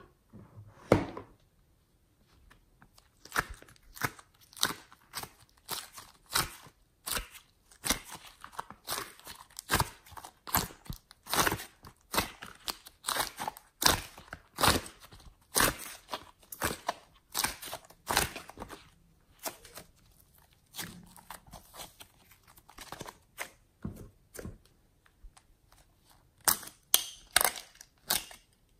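Fingers squeezing and pulling soft, sticky modelling clay, making an irregular run of crackles, pops and sticky snaps.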